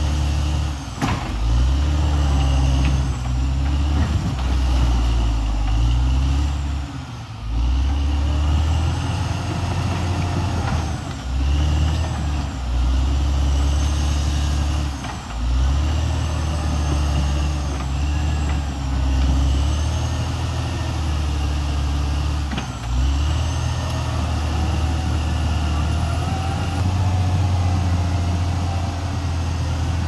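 Caterpillar D6R XL crawler dozer's diesel engine working under load as it pushes earth, the engine note sagging and picking up again several times, with high squealing from the steel tracks over it.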